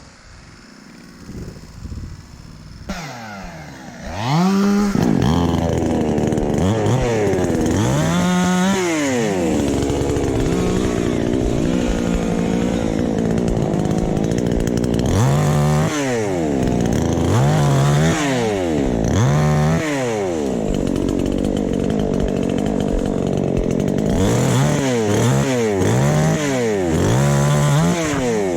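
Chainsaw engine, faint for the first few seconds, then running loud from about four seconds in, its pitch rising and falling again and again as the throttle is worked.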